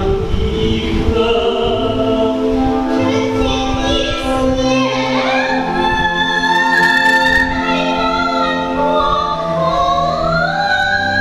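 A man and a woman singing a duet through stage microphones over musical accompaniment, with long held notes and upward slides between phrases.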